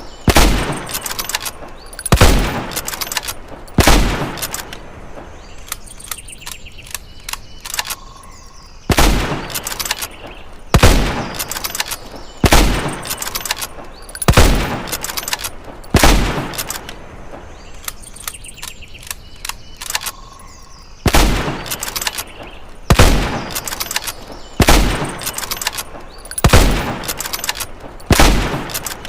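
Springfield rifle firing single shots about two seconds apart, in three strings of several shots with pauses of a few seconds between them. Each report decays over about a second and is followed by a few small clicks.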